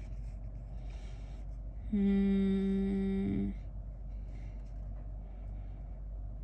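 A woman humming one steady, held note for about a second and a half, starting about two seconds in, over a low steady background hum.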